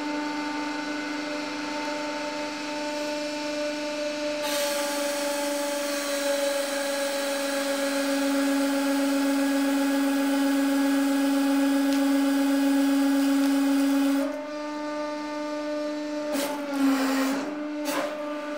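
150-ton hydraulic press's pump running with a steady hum. About four and a half seconds in, a loud hiss joins it as the ram drives down under load, and it falls back to the plain hum about fourteen seconds in. A few clicks and a brief dip in the hum's pitch come near the end.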